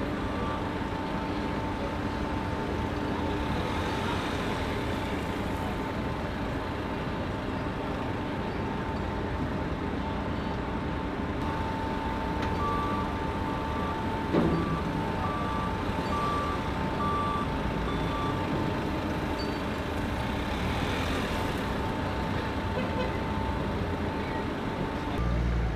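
Forklift engine running steadily under a steady high tone, while it handles pallets beside a truck. About halfway through, a reversing alarm beeps roughly once a second for several seconds, with a single sharp knock among the beeps. The engine rumble swells near the end.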